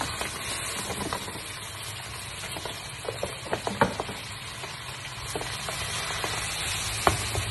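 Salmon frying in a pan, sizzling steadily, as ricotta is tipped in and stirred with a wooden spoon, with scattered light knocks of the spoon against the pan.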